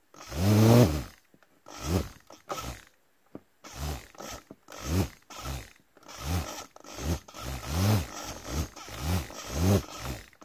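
Small brushed DC can motor driven through an L298N H-bridge, spinning up and winding down in about ten short bursts as the steering stick is worked back and forth, reversing direction with the servo. Each burst is a whine that rises and then falls in pitch; the first, about a second long, is the loudest.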